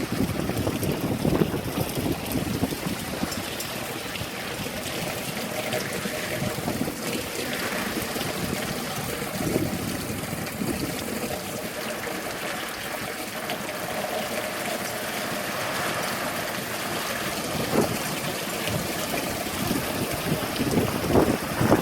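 Heavy rain falling steadily in a downpour, a continuous hiss of water.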